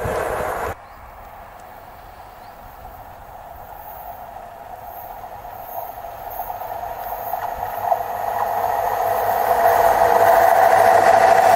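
Passing train noise that cuts off suddenly under a second in, then a Class 142 Pacer diesel railbus approaching on the curve, its engine and wheels on the rails growing steadily louder as it draws close, with a single click about eight seconds in.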